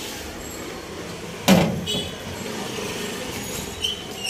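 A loud thump about a second and a half in, then a smaller knock just after, over a steady background hum.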